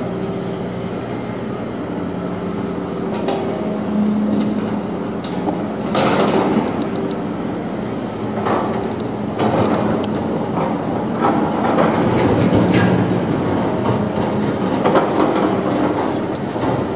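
A Sumitomo SC500 crawler crane's engine running steadily, with irregular metallic clanks and scrapes from a suspended steel plate as it is guided by hand against the steel road plates below.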